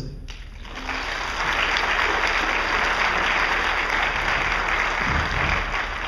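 An audience applauding, the clapping building over the first second into steady applause.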